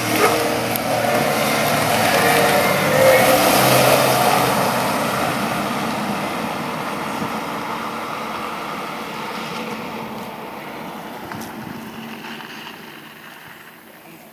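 Car driving away: engine and tyre noise build over the first few seconds, then fade slowly into the distance.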